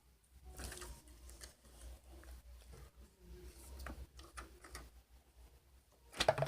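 Slime being squished and stretched by hand, giving irregular small sticky clicks and crackles, with a louder cluster of pops near the end.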